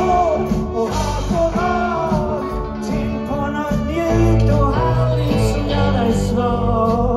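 A rock band playing live: electric guitars and bass with a sung vocal line over them.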